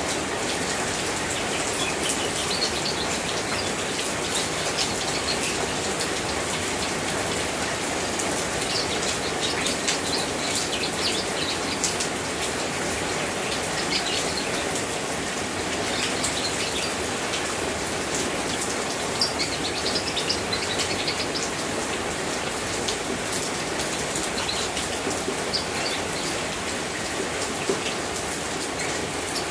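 Steady rain falling, with drops pattering, and small birds chirping now and then through it.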